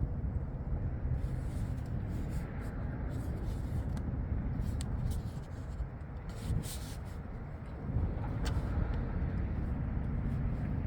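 Wind rumbling on the microphone, with a few light clicks and taps scattered through it.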